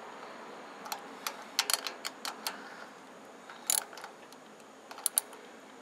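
Irregular light metallic clicks of a ratchet wrench tightening the carburetor mounting bolts on a Champion generator, a few short strokes at a time, with a cluster in the first half and a few single clicks later.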